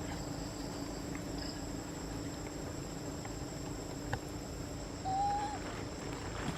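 Forest insects shrilling steadily in high, unbroken tones, over a low hum. A short click comes about four seconds in, and a brief whistle-like note about a second later.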